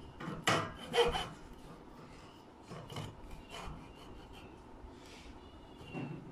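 Hacksaw cutting through a wooden block in back-and-forth strokes, two louder strokes in the first second and fainter ones after.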